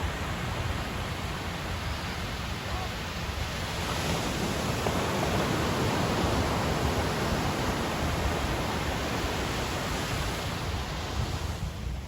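Ocean surf breaking and washing up a beach: a steady rush that swells for several seconds about a third of the way in, then eases near the end.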